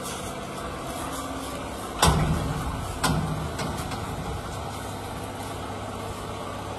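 A steady engine-like hum, interrupted by two sudden thumps about a second apart, the first about two seconds in.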